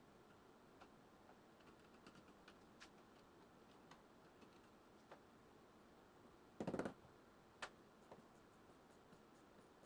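Near silence with faint, irregular light clicks and taps, and one short louder clatter about seven seconds in.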